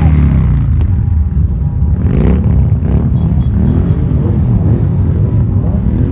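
Several motorcycle engines running and revving as the bikes ride slowly past close by, their pitch rising and falling; the low engine sound is loud throughout.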